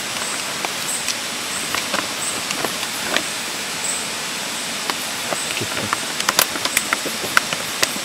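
The flameless heater of a Kembara self-heating meal pack fizzing and crackling as it reacts with water and gives off steam, over steady rushing noise. The pops come thicker after about six seconds.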